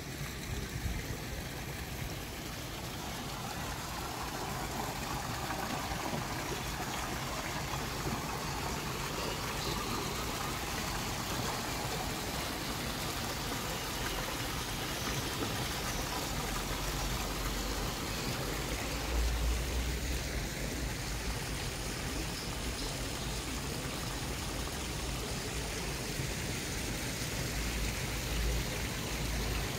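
Water splashing and trickling in the Barcaccia fountain, a steady even wash of sound, with a few low rumbles about two-thirds of the way through and near the end.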